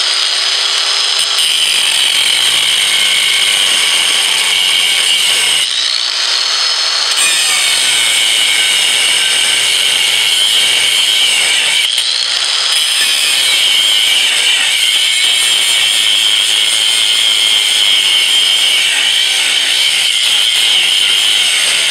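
A power tool cutting through the steel of a heat-treated tire iron, a loud steady grinding whine. Twice the cut eases off briefly and the motor's pitch rises again as it spins back up.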